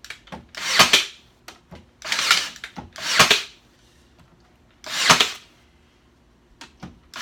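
DeWalt plastic trigger clamp being squeezed repeatedly, its ratchet working the metal bar closed onto a bowed board. There are five short squeezes, each a rasping stroke that builds and then stops sharply.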